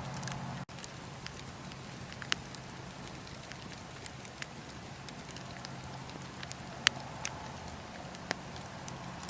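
Wood fire crackling, with scattered sharp pops, the loudest about two and seven seconds in, over a steady low hum.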